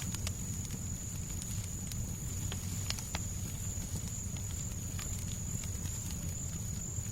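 Fireplace crackling with irregular sharp pops over a steady low rumble of background noise, and a thin steady high tone throughout.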